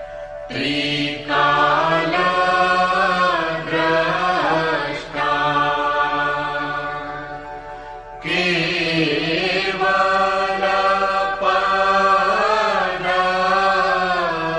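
Devotional Hindi chant music, a guru vandana: a voice sings long, gliding phrases over a steady low drone, the second phrase starting a little past the middle.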